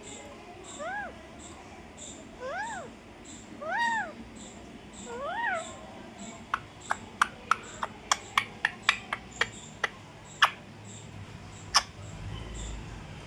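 A parrot imitating a cat's meow: four short meows, each rising and falling in pitch. They are followed by a run of sharp, irregular clicks.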